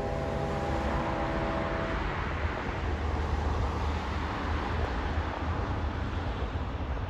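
Steady rumble of road traffic, with a horn held for about two seconds at the start.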